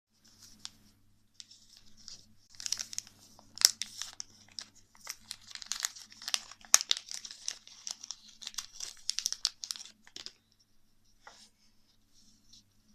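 Plastic packaging crinkling and tearing as it is handled and opened by hand, in a rapid run of crackles and sharp clicks that dies down about ten seconds in.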